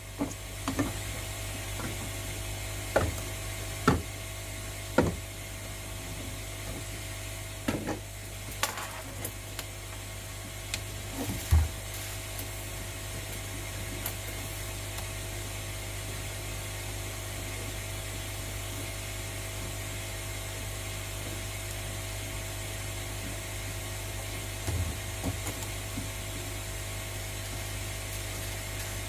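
A handful of sharp knocks and clicks from tools and parts being handled, mostly in the first dozen seconds with a couple more near the end, over a steady low hum.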